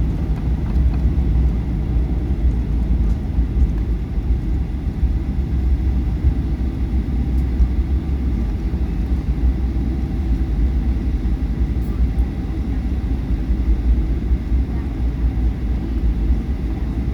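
Airliner landing, a steady low rumble that holds level throughout.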